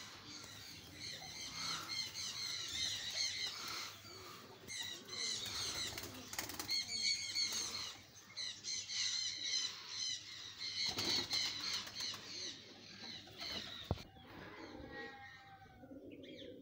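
Domestic pigeons taking off and flying, their wings flapping, with a steady chatter of small birds chirping over it and a few sharp claps.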